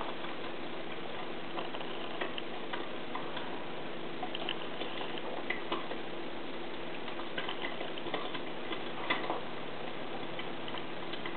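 Eggs frying in a lidded saucepan over a small alcohol burner: small irregular pops and ticks over a steady hiss, with a steady hum underneath.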